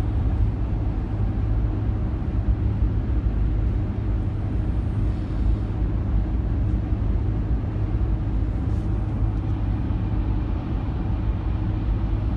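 Steady low rumble of tyre and engine noise inside a car's cabin while it drives along a highway.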